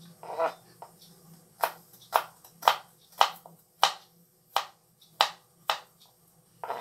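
Kitchen knife slicing garlic cloves on a plastic cutting board: a series of sharp knocks of the blade striking the board, about two a second and slightly uneven.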